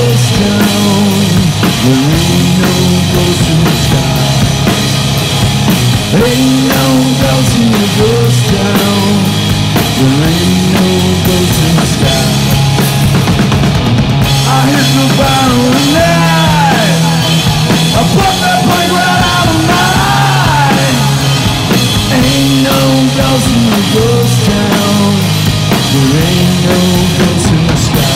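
Live rock band playing loud: a pounding drum kit and distorted electric guitar, with a man singing in repeated phrases over them.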